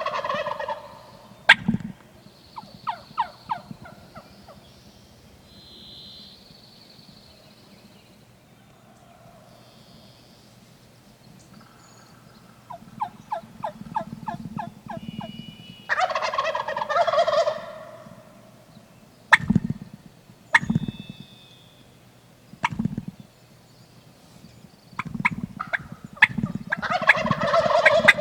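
Wild turkey gobbling three times, near the start, about halfway through and near the end. Between the gobbles come runs of quick, evenly spaced turkey yelps, and there are a few short low thumps.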